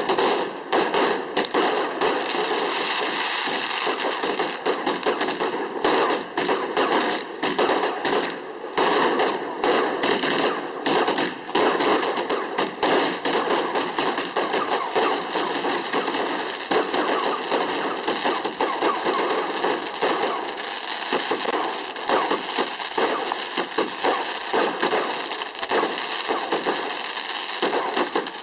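Fireworks going off in a continuous rapid barrage of bangs and crackles, like a firework cake or firecracker string.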